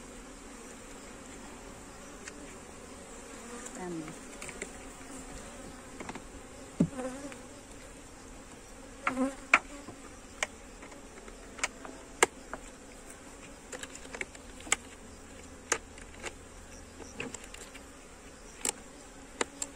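Honeybees buzzing around an open nucleus hive, with a few bees passing close by, their pitch sliding down. From about six seconds in come a series of sharp wooden knocks and clicks as the hive is closed up with its lid and entrance piece.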